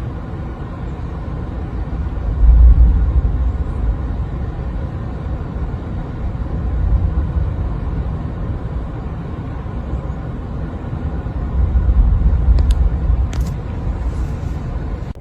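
Wind buffeting the microphone outdoors: a steady low rumble that surges in three stronger gusts, with a couple of faint clicks near the end.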